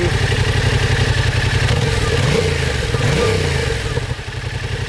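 Yamaha Tracer 700's parallel-twin engine on its stock Euro 4 exhaust, running warm at idle and blipped twice, the revs rising and falling about two and three seconds in.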